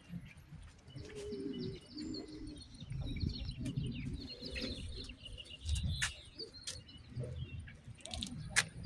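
Birds chirping: a run of short, high calls, with low rumbling underneath.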